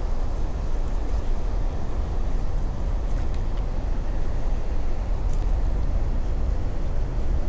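Steady wind noise buffeting the microphone, with surf behind it.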